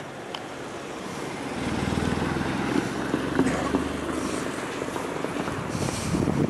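Diesel shunting locomotive engine running nearby, getting louder about a second and a half in as it comes closer.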